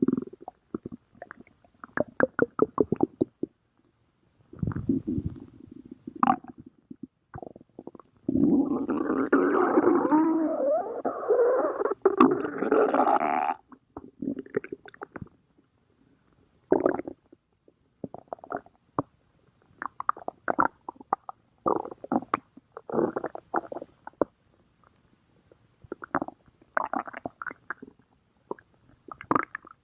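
A person's stomach growling: a series of gurgles in quick runs with short silent gaps, and one long continuous rumble of about five seconds near the middle.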